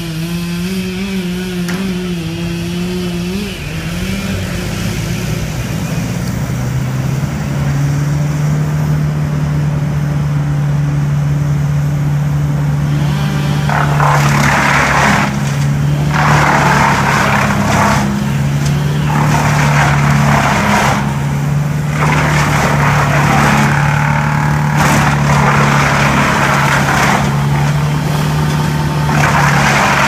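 Tow-behind brush chipper's engine running, its pitch wavering for the first few seconds, then settling lower and steady. From about halfway, loud bursts of grinding, each a second or two long, repeat as branches are fed in and chipped.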